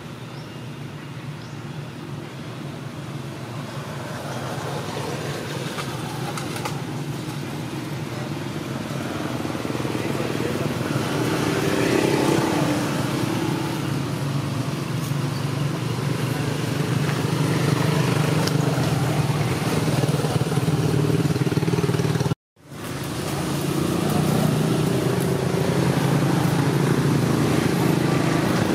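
An engine running steadily, growing gradually louder over the first half. It cuts out for a moment about two-thirds of the way through, then runs on.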